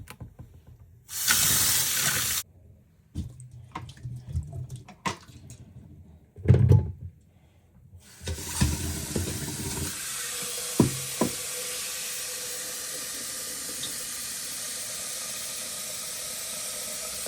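Water running from a tap into a sink: a steady rush from about eight seconds in. Before that come a short loud hiss near the start and scattered knocks and clatter, with one heavy thud.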